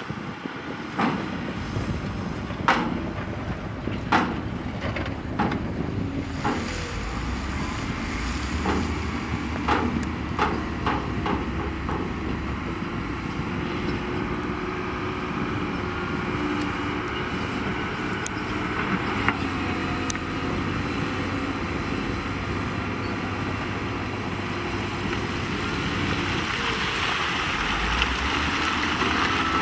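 Heavy diesel construction machine running steadily, with a series of sharp knocks in the first dozen seconds. The engine grows a little louder near the end.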